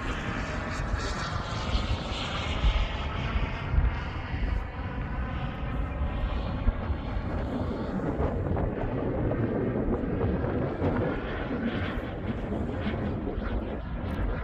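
KingTech K102 model jet turbine of an RC jet in flight, a steady turbine rush. Its whine sweeps down in pitch over the first few seconds as the jet passes.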